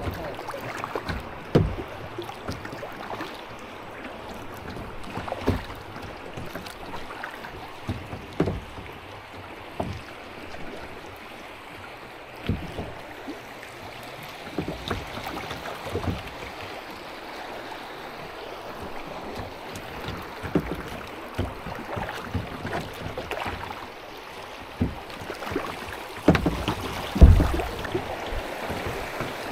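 Kayak paddling on a river: paddle strokes splashing at irregular intervals over a steady rush of water and wind, with a few sharper knocks.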